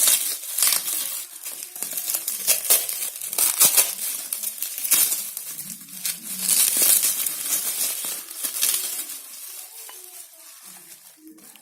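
Packaging wrapper crinkling and rustling in irregular bursts as it is torn and pulled off a watch box, dying away over the last few seconds.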